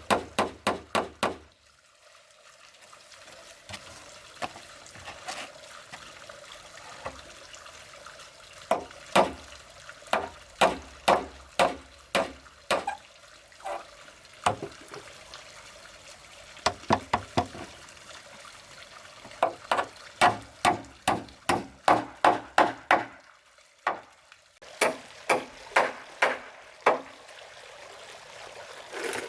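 Tool striking wood in quick runs of sharp knocks, about three to four a second, with short pauses between runs, over a steady sound of running water.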